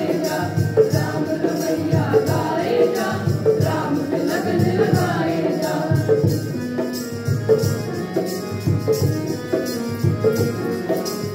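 Group of students singing a Hindu devotional bhajan together, with drums and percussion keeping a steady beat.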